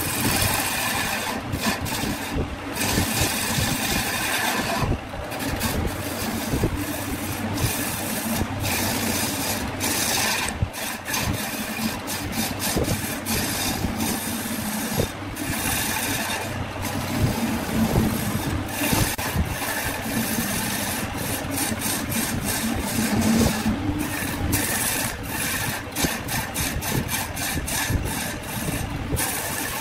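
Wood lathe running while a turning tool cuts the spinning cylindrical blank: a continuous rough scraping of the tool on the wood over the lathe's low hum, broken by many short gaps as the cut comes and goes.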